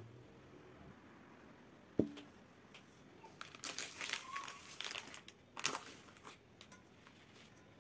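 Plastic food packaging crinkling and rustling as it is handled: a wrapped packet of phyllo pastry sheets and a plastic tub of cheese. Before that, about two seconds in, there is a single sharp knock with a short ring.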